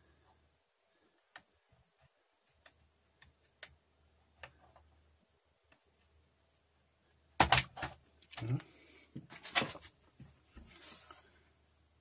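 Faint scattered ticks, then two clusters of sharp clicks about seven and a half and nine and a half seconds in, and a short scrape near the end: hand work with a utility knife on the plastic key tabs of an LGA775 CPU socket.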